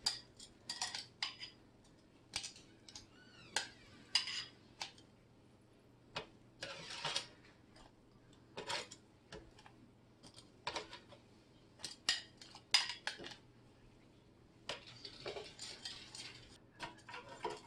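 Metal kitchen tongs clinking against a glass bowl and an air fryer basket as chicken wings are dipped in sauce and put back: scattered light clicks and clinks, a few per second in bursts, with a busier stretch of clatter near the end.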